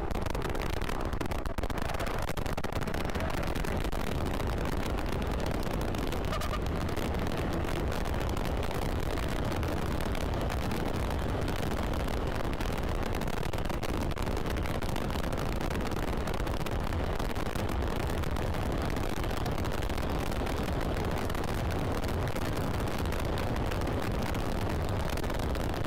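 Kawasaki KRV 180 TCS under way: steady wind rumble buffeting the microphone, with the motorcycle's engine running underneath at an even pace.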